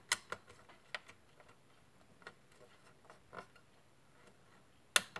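A few sharp small clicks about a second in, scattered faint ticks, then one loud click near the end: the plastic push-pin fasteners of an Intel boxed CPU cooler being handled and pressed.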